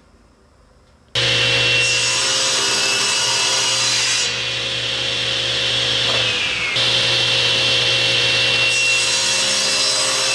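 Table saw running with its blade cutting into a solid block of ABS plastic, starting about a second in. The sound changes sharply partway through, between two cuts.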